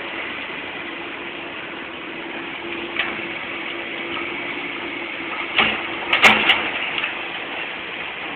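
Demolition work: heavy machinery running with a steady low drone under a general clatter, and a few sharp knocks and bangs, the loudest cluster about six seconds in.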